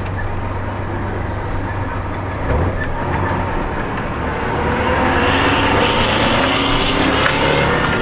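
FTF truck's Detroit Diesel 6V92 two-stroke V6 engine heard from inside the cab, running steadily under load. About halfway through it gets louder and its pitch climbs as the truck speeds up.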